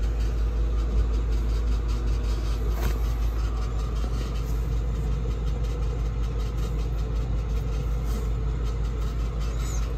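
A steady low rumble with a faint hum, as of a motor or machine running without change.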